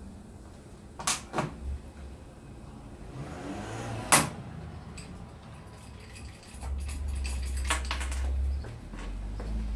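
Hand pop-rivet gun being squeezed to set a pop rivet through the blind's rail into the plywood frame. There are a few clicks, then one sharp snap about four seconds in as the rivet's mandrel breaks off, and more clicks near the end over a low rumble.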